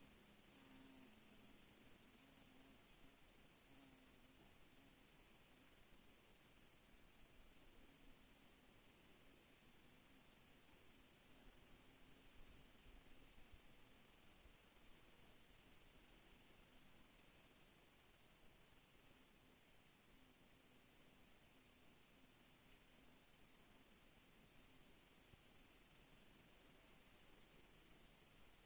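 Evening chorus of crickets: a faint, steady, high-pitched shrilling that goes on without a break.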